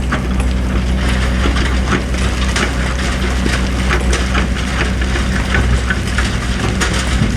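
Hydraulic excavator's diesel engine running steadily, with irregular short scrapes and clatters from the bucket working sand and stones.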